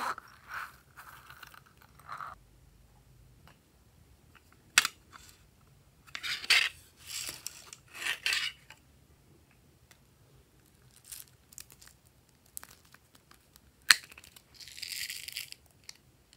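Small plastic donut-shaped containers being handled and snapped open, with sharp clicks and rattling, then a short hiss of sprinkles being poured out near the end.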